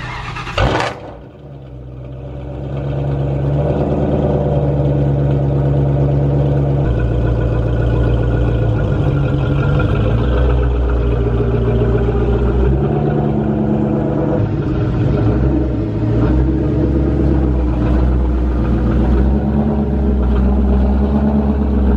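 2003 Mustang Cobra's supercharged 4.6-litre V8 running with a steady low exhaust rumble as the car is reversed slowly. The note swells about a third of the way through and shifts again midway.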